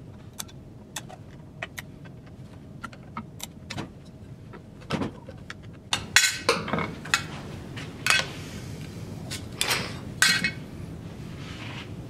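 Metal tools and small metal parts clicking and clinking on a workbench while an old web guide actuator is taken apart with a screwdriver. The first half holds sparse light clicks; from about halfway through come louder clinks and clatter with short ringing.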